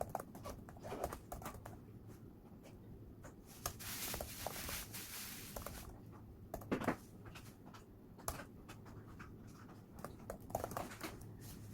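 Scattered light clicks and taps, with a steady hiss for about two seconds near the middle.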